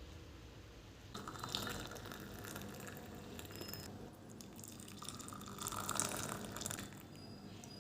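Water running and splashing in two spells, the second starting about five seconds in.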